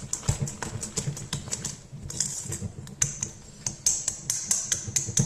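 Wire whisk beating thick banana bread batter in a stainless steel bowl, its wires clicking against the metal about four times a second.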